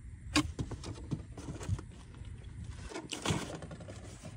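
Handling noise from a cardboard parts box being moved about: a few light taps and clicks, with a brief rustle about three seconds in.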